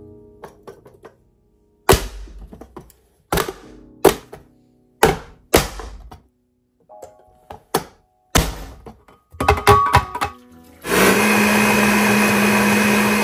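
A series of sharp knocks, then an electric blender starts about eleven seconds in and runs steadily with a constant motor hum, blending apple, beetroot and carrot into juice.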